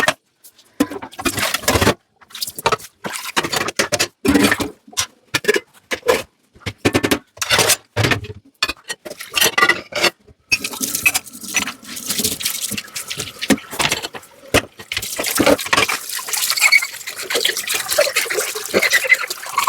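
Dishes being hand-washed at a sink: short separate bursts of scrubbing and dishes being handled, with quiet gaps between them. About halfway through, the tap water starts running steadily.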